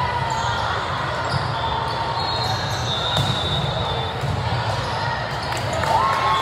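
Volleyball rally in a large, echoing sports hall: ball hits on the court and short sneaker squeaks over a steady murmur of voices from spectators and neighbouring courts.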